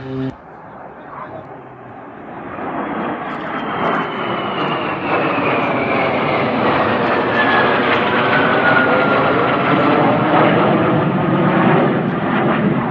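Military aircraft passing low overhead. The engine noise builds over a few seconds into a loud, steady rush, and a high whine falls steadily in pitch as the aircraft goes by.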